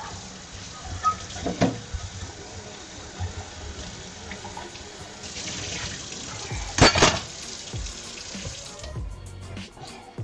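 Kitchen faucet running into a stainless steel sink as a measuring cup is rinsed under it, with a few sharp clunks of dishware against the sink, the loudest about seven seconds in. The running water stops near the end.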